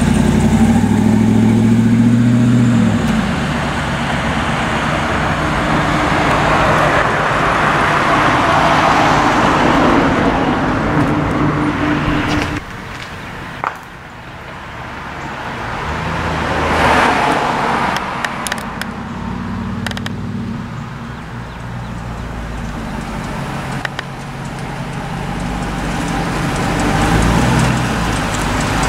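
2002 Ford SVT Lightning pickup with its supercharged 5.4-litre V8 driving past, the engine note falling away over the first few seconds, followed by road and tyre noise. Later the truck's engine is heard again at low revs, growing louder as the truck pulls back in.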